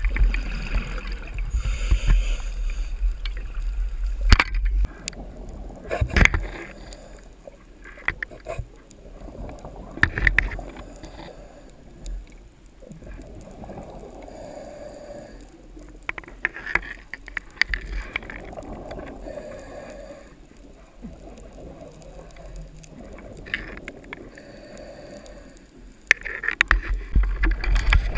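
Muffled underwater sound picked up through a camera's waterproof housing while the diver swims: a low rumble of water moving over the housing during the first few seconds and again near the end, scattered sharp clicks and knocks, and soft swells of noise every few seconds in between.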